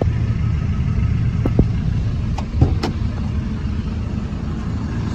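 Hino 300 Series truck's diesel engine idling steadily as a low rumble heard from inside the crew cab, with a few light knocks and clicks from handling in the cab.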